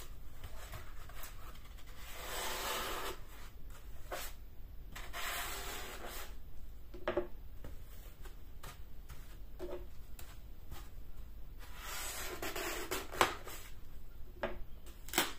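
A kitchen knife sawing through a block of dry green floral foam, a scratchy rasping in several stretches, with a few light knocks in between.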